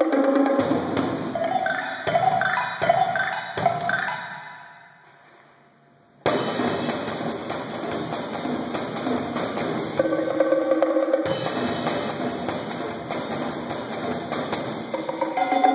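Solo multi-percussion playing on a drum kit with toms, cymbals and small struck percussion. A run of pitched strikes fades away to near silence about four to five seconds in, then the playing comes back suddenly and loud about six seconds in and continues densely.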